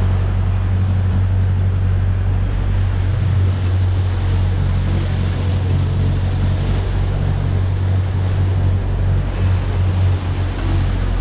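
Sport-fishing boat's engine running steadily at trolling speed, a low hum, under the rushing of the prop wash and wind across the microphone.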